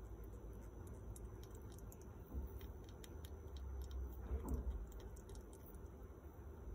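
Faint, irregular tiny clicks of a baby squirrel suckling milk from a syringe tip, over a low rumble, with a couple of soft bumps about halfway through.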